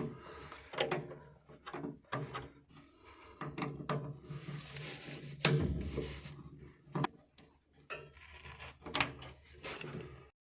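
A series of knocks, clicks and rubbing from things being handled, like a cupboard door or drawer being worked, with the loudest knock about five and a half seconds in.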